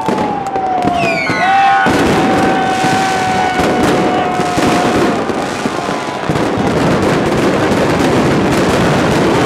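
Fireworks going off close by, with dense crackling and popping throughout. Whistles fall in pitch at the start and again about a second in, then one steady whistle holds for several seconds.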